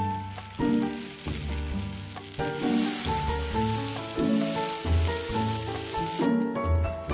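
Butter sizzling as it melts in a hot frying pan, the sizzle loudest from about two and a half seconds in until shortly before the end, under background music with a bass line.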